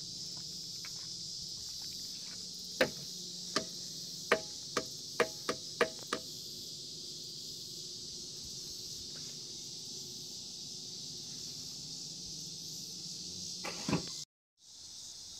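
Steady, high-pitched insect chorus, as of crickets. About three seconds in, a quick run of about eight sharp clicks or knocks stands out over it, and a softer bump comes near the end.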